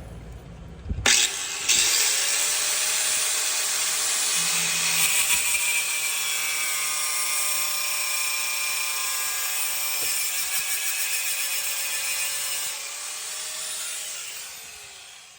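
Craftsman CMEG100 6-amp 4½-inch angle grinder with a cutoff wheel switching on about a second in, spinning up and cutting through a braided rubber brake hose: a steady high motor whine under a harsh grinding hiss. Near the end the motor is switched off and its whine falls away as the wheel spins down.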